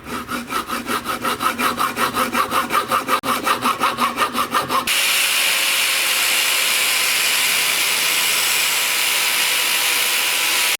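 Saw cutting through a radiator fan temperature switch, quick back-and-forth strokes about four a second. About five seconds in the strokes give way abruptly to a steady hissing noise.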